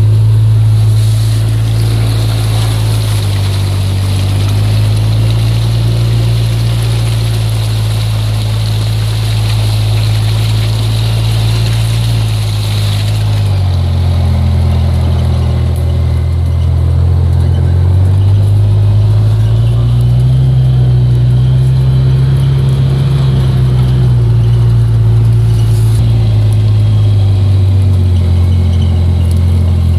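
Side-by-side utility vehicle's engine running while it drives, a loud low hum that shifts up and down in pitch several times as it speeds up and slows. A hiss rides over it through the first half.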